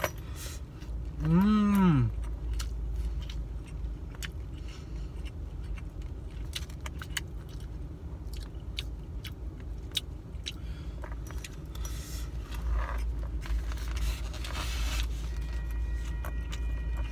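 A plastic fork clicking and scraping in a takeout container of rice while a man chews, over a steady low rumble. About a second and a half in he gives one appreciative hummed "mmm".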